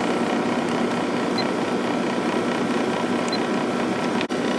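1997 Sharp 8500 BTU window air conditioner running on low fan speed with the compressor on: a steady hum of fan and compressor with a low tone in it, broken by a momentary dropout near the end.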